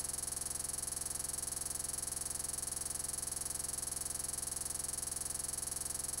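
Steady, unchanging electronic buzz with a high whine and a fast, even flutter: digital noise from a corrupted recording.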